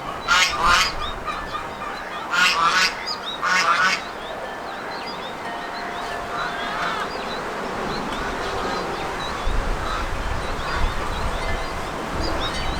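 Geese honking: a run of loud, repeated honks over the first four seconds, then only a few faint calls.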